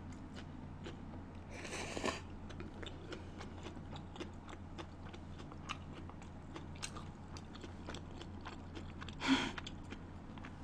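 Close-miked chewing of seafood scallion pancake, with many small wet mouth clicks. A short slurp comes about two seconds in, as a green onion strand is drawn into the mouth, and another short rush of noise about nine seconds in.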